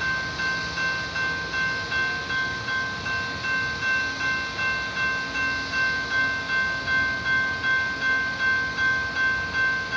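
Railroad grade-crossing warning bell ringing steadily, a little over two strikes a second, each strike fading before the next.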